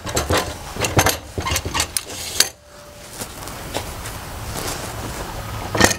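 A rapid series of metal clanks and knocks as a Hitachi miter saw is set and adjusted on the rails of a DeWalt miter saw stand, lasting about two and a half seconds. Quieter steady background noise follows, with one more sharp knock near the end.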